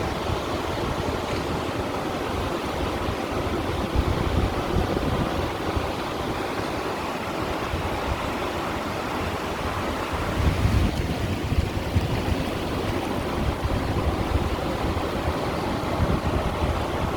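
Sea water washing and splashing against stones along a rocky shore, a steady wash that swells a little now and then.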